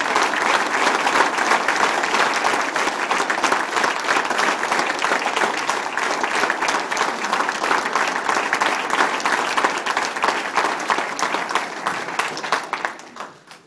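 Audience applauding, many hands clapping at once; the applause thins out and stops near the end.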